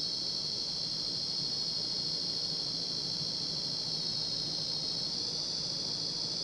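Faulty Inteli-Touch control board in a 1990 Casablanca Panama ceiling fan: its sound driver gives a constant high-pitched buzz while power is applied. This is the sign of a failed part on the board, which the owner guesses is a capacitor or a transistor.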